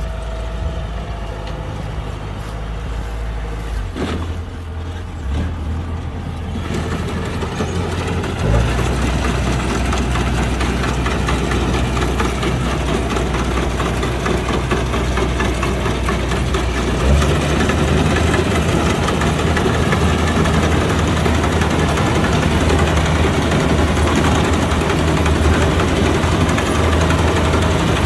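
Kubota combine harvester's engine running steadily, stepping up in speed and getting louder about eight seconds in and again around seventeen seconds.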